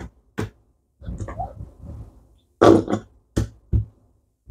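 Plastic squeeze bottle of tomato sauce squeezed upside down into a bowl, the sauce and air squirting out of the nozzle in several short spurts.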